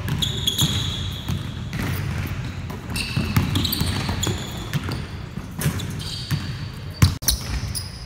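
Basketballs being dribbled on a hardwood gym floor, with repeated short, high squeaks of sneakers on the wood. There is one sharp knock about seven seconds in.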